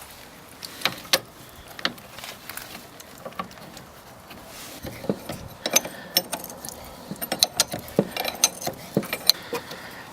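Metal clicks and clinks of tools and tap parts being handled as a tap's spindle is put back in over a new washer. A few separate clicks at first, then quick clusters of them from about halfway in.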